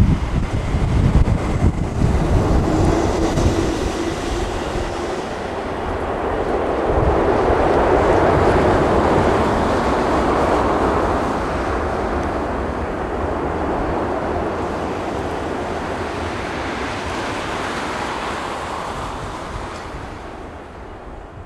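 Jet engine roar of a landing Boeing 747-400 converted freighter, swelling to its loudest about eight seconds in and then slowly fading away. Gusts of wind buffet the microphone at first.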